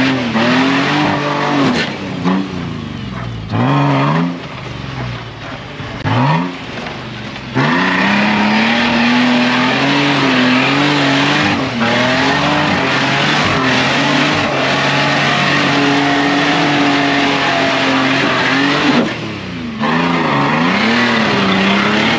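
Nissan Patrol 4WD engine working under load up a steep rock climb. It revs in several short rising and falling bursts, then is held at high revs for about ten seconds, and is blipped again near the end.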